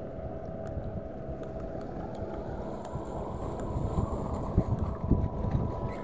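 Wind buffeting the microphone in uneven gusts, stronger in the last couple of seconds, over small waves washing against shoreline rocks.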